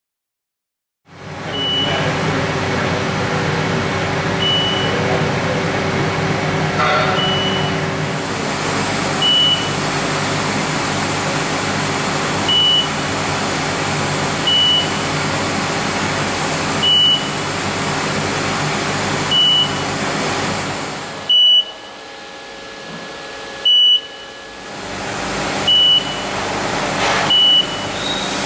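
LK G90C CNC coordinate measuring machine running, a steady hum from its drives with a short high beep every two to three seconds. Near the end the hum drops away for a few seconds while the beeps go on, then it picks up again.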